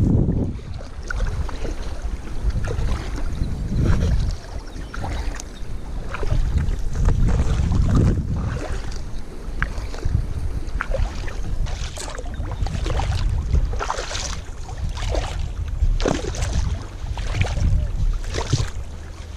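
Double-bladed kayak paddle dipping and splashing in choppy sea water, stroke after stroke at about one splash a second, sharper in the second half, with wind rumbling on the microphone.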